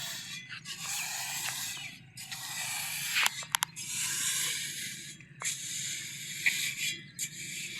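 Block-making work: rushing, hissing bursts of about one to two seconds each, broken by short pauses, over a steady low machine hum, with a few sharp clicks a little after three seconds in.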